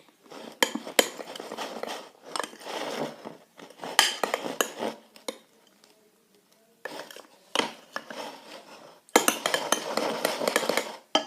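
A spoon stirring and scraping a thick slime mixture of shaving foam, play gel and corn starch in a bowl, with sharp clinks of the spoon on the bowl. It goes in four bouts with short pauses between them.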